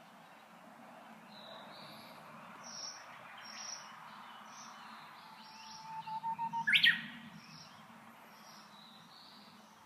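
Japanese bush warbler singing its "hō-hokekyo" song once, about six seconds in: a held whistle followed by a quick flourish of notes. Short high chirps from small birds come and go throughout.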